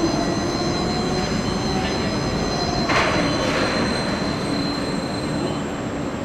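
Overhead travelling crane in motion: a steady machine whine with slowly shifting pitch and a thin high tone above it, with one metallic clank about three seconds in.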